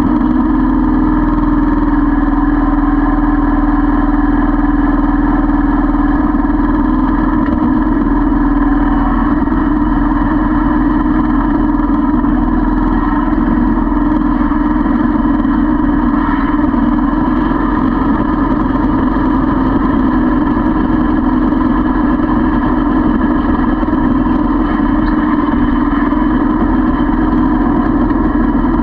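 Kubota L3200 tractor's three-cylinder diesel engine running steadily, loud and close, as the tractor drives with logs on its front loader.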